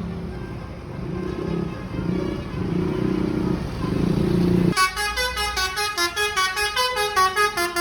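A bus's low droning sound builds in loudness, then, about two-thirds in, cuts abruptly to a telolet horn playing a fast melody of short notes stepping up and down, about six a second.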